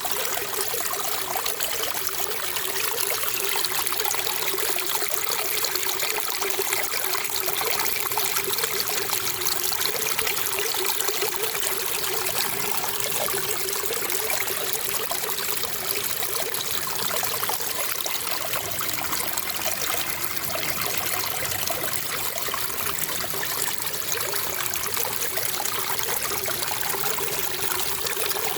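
Water trickling and flowing steadily, with a light bubbling.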